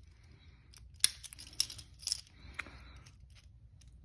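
Steel handcuffs being handled: four sharp metallic clicks about half a second apart, with fainter clinks between them.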